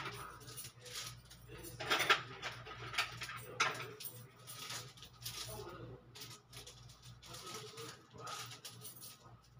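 Thin gold bangles clinking against one another as a stack is turned in the hand, in scattered light metallic clicks, over a low steady hum.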